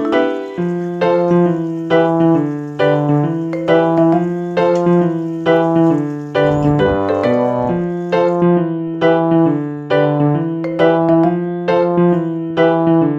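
Background piano music: notes struck about two a second over a held bass line.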